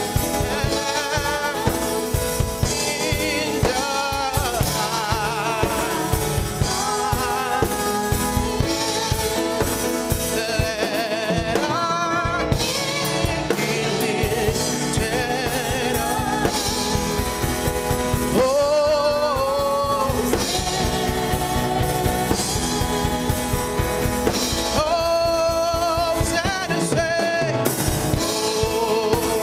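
Live contemporary worship song: a woman and a man singing over an electronic keyboard with a steady drum beat.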